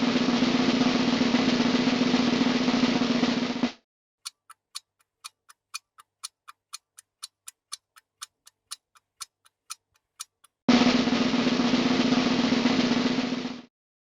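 Snare drum roll held steadily for about four seconds and cut off sharply, then rapid, even ticking at about four ticks a second for some six seconds, then a second steady drum roll of about three seconds, cut off sharply.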